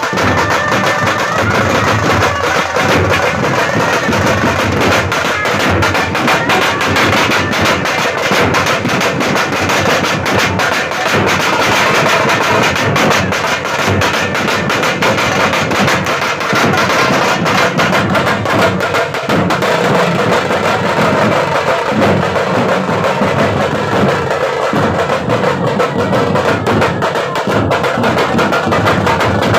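Marching band drums playing a fast, continuous beat of snare and bass drum, with pitched band instruments sounding steadily over it.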